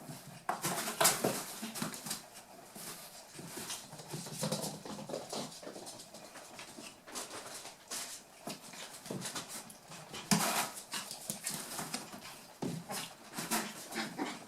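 Eight-week-old toy poodle puppies playing: a busy run of scuffles and clicks mixed with short puppy vocal sounds, loudest about a second in and again about ten seconds in.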